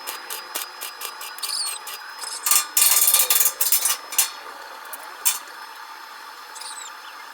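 Workshop tool noise: a cluster of harsh, rapid scraping and knocking strokes about two and a half seconds in that lasts under two seconds, then one sharp knock. Short, high squeaky chirps come twice over a steady background hum.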